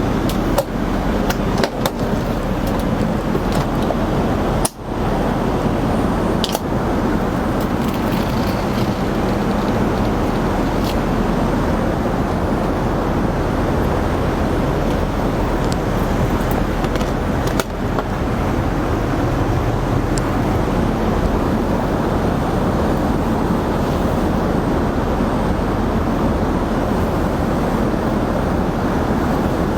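Steady roar of airliner cabin noise inside an Airbus A380 in flight, with a few faint clicks and knocks over it.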